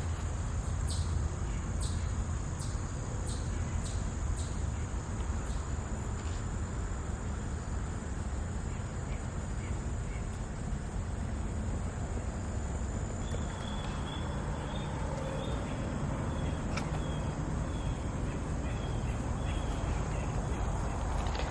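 Outdoor insect drone, a steady high buzz over a low rumble, which fades about halfway through. Light footsteps tick about every half second for the first several seconds, and a run of short chirps comes in the second half.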